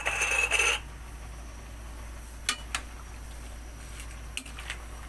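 Metal spoon scraping and clinking against a steel pan as salt goes into the dish: a short scrape with a ringing note at the start, then a few separate light clinks.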